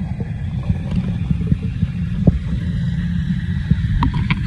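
Muffled underwater rumble of moving pool water, low and steady, with a few faint clicks.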